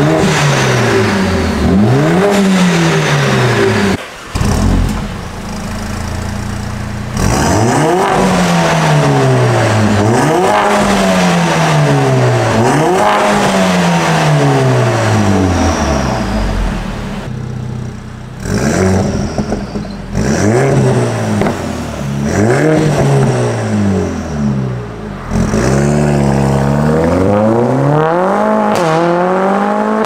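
Mercedes-AMG CLA45 S's turbocharged 2.0-litre four-cylinder, fitted with a catless downpipe, revved repeatedly while parked: a string of rev blips, pitch rising and falling back each time, heard at the exhaust tips. The later revs are with the exhaust valves open.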